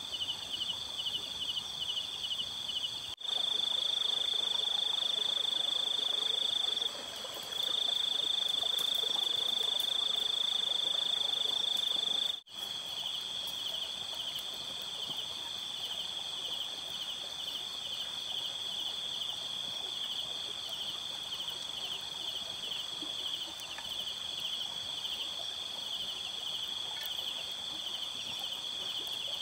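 Chorus of night insects: a high, continuous trilling with a fast pulsing beat. About 3 s in it changes abruptly to a louder unbroken trill, and at about 12 s it returns to the pulsing chorus.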